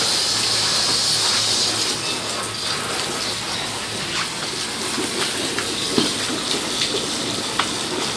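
A cloth wiping the wet plastic floorboard of a scooter, over a steady rushing hiss like running water. Light rubbing sounds come with a couple of small knocks, the sharpest one about six seconds in.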